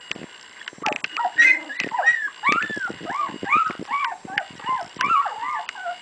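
A litter of two-week-old puppies whimpering and squealing: many short, high cries that rise and fall in pitch, about two a second and overlapping one another.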